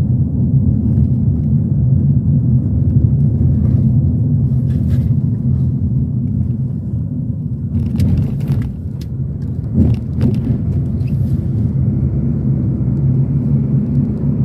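Steady low rumble of a car driving, heard from inside the cabin, with a few brief knocks about two-thirds of the way through.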